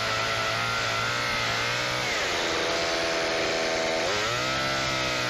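Gasoline chainsaw running under throttle. Its engine note sags about two seconds in and climbs back up about four seconds in.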